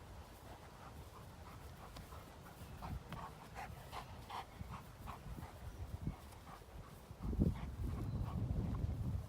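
Doberman panting, with short faint high-pitched sounds through the first half. A louder low rumbling noise comes in about seven seconds in and lasts about two seconds.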